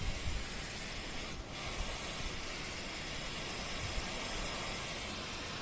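Small torch burning with a steady hiss while it heats a steel truss rod for bending. The hiss briefly cuts out about a second and a half in.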